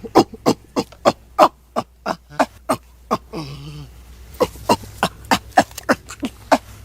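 Common chimpanzee calling in a rapid series of short, loud calls, about three a second, with a brief lower drawn-out call a little past the middle before the series resumes.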